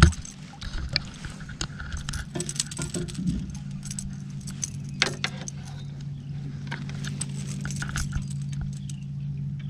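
Rattling and clinking of a landing net and fishing tackle against the boat while a netted catfish is handled, with a sharp knock at the very start and scattered clicks throughout. A steady low hum comes in about a third of the way through.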